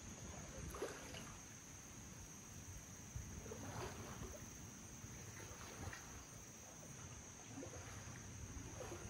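Faint splashes of a double-bladed kayak paddle dipping into the water every second or two as the kayak is paddled away.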